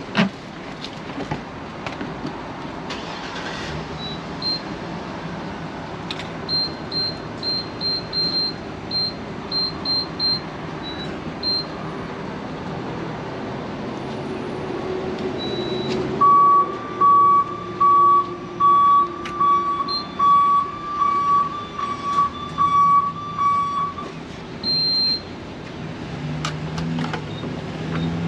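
Gas pump keypad beeping: short high beeps come in an irregular string as buttons are pressed. About sixteen seconds in, a run of lower, evenly spaced beeps starts, a little faster than one a second, and lasts about eight seconds. Steady outdoor traffic noise runs underneath.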